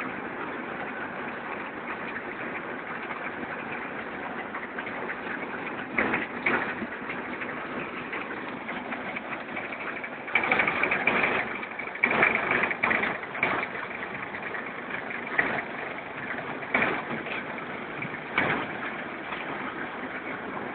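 Reversible concrete drum mixer plant running with a steady mechanical noise, broken by several louder clattering bursts, the longest around the middle.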